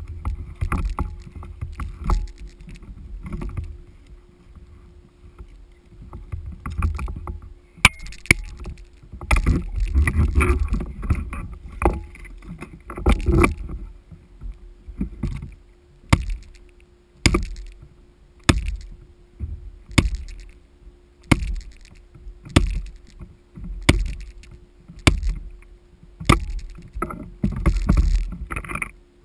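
Sit-on-top fishing kayak on open sea: water sloshing against the hull with sharp knocks on the deck, irregular at first, then a regular knock about every 1.3 seconds through the second half.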